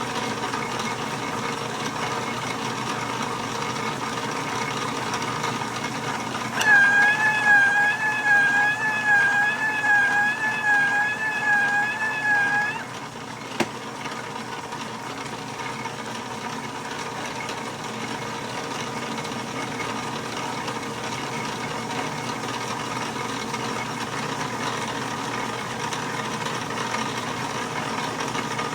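1943 South Bend lathe running with a steady hum. About seven seconds in, a loud high-pitched squeal, wavering up and down about twice a second, lasts some six seconds and stops abruptly, followed by a single click.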